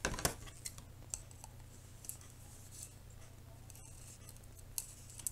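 Faint, scattered clicks of a plastic drinking straw being bent and handled, with a pair of scissors picked up and brought to it, over a low steady hum.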